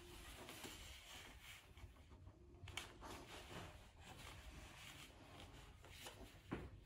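Faint rustling of a fabric snuffle mat as a Bernese mountain dog puppy noses and paws through it, with two soft knocks, the louder one near the end. Otherwise near silence.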